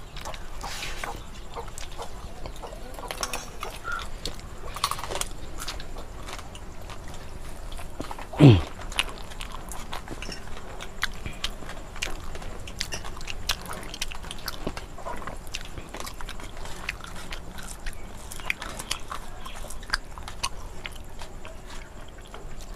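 People eating rice and curry with their hands from steel plates: chewing and the mixing of rice, with many small clicks and clinks throughout. About eight and a half seconds in, one short sound sweeps sharply down in pitch, louder than everything else.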